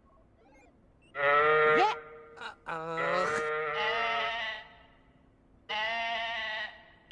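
Three long, pitched, bleat-like animal calls with quiet gaps between them, the first the loudest and the middle one longer and wavering.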